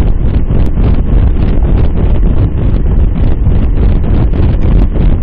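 Loud, steady wind buffeting on a bike-mounted Cycliq camera's microphone from riding at about 24 mph, heavy in the low rumble.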